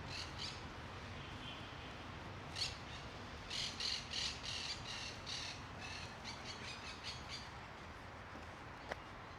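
A bird gives a series of harsh, chattering squawks, roughly three a second, over a steady low background hum.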